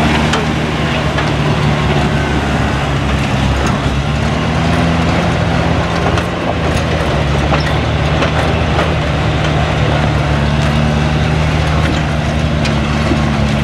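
Rock crawler's engine running steadily at low revs as the rig crawls over rocks, with a few sharp clicks and knocks.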